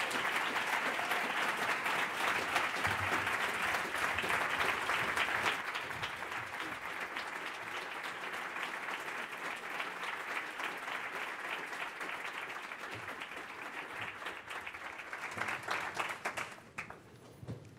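Audience applauding: dense, steady clapping, loudest for the first six seconds or so, easing a little, then dying away near the end.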